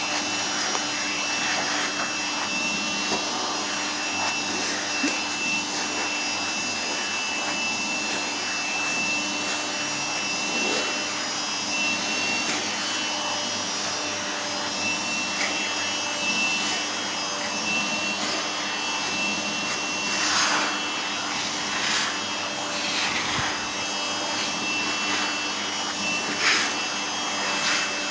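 A vacuum cleaner running steadily with a constant whine, being passed over a cat's fur. Several short swishes can be heard in the second half as the nozzle strokes along.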